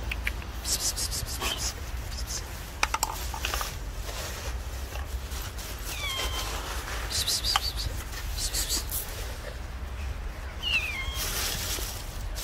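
Stray cats giving short high calls that fall in pitch, once about six seconds in and again near eleven seconds, between bursts of crisp crackling noise.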